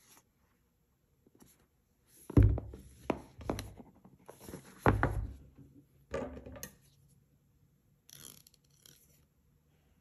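A cardboard box being handled on a wooden tabletop: a few knocks and thuds with rubbing in between, the two loudest about two and a half and five seconds in.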